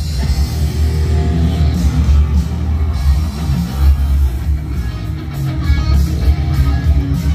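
Rock music led by guitar, with a heavy bass.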